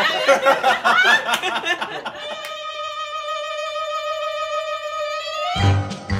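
A group of people laughing for about two seconds, then a single long held musical note, then upbeat background music with a steady bass beat kicking in near the end.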